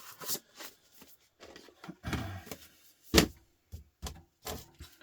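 Dismantled TV parts being handled and tossed aside: scattered clicks and scrapes, with one loud knock a little after three seconds in.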